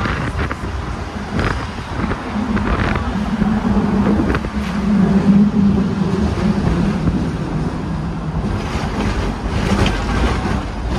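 Hong Kong electric double-decker tram running, heard from the upper deck with the windows open: a steady rumble with wind noise and occasional clicks. A low hum swells about two seconds in and fades about eight seconds in.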